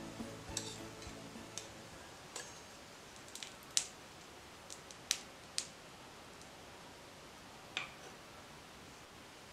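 A metal teaspoon clinks against a steel spoon-pan and a small steel plate as small fried pieces are lifted across. It makes a scattered series of light, sharp clicks, loudest around four and five seconds in.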